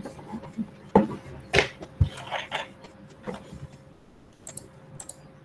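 Scattered, irregular knocks and clicks, about eight over a few seconds, over a faint steady electrical hum.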